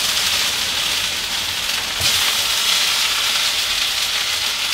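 Beef fried rice sizzling steadily in a hot wok.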